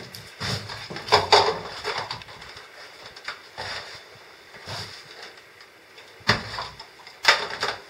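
Irregular knocks and clatter of things being handled on a metal lift power-unit tank as a laptop is set down and moved about, about half a dozen separate bumps.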